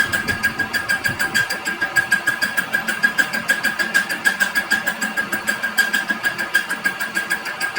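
Metalworking machine running with a fast, even clatter of about seven beats a second over a steady whine.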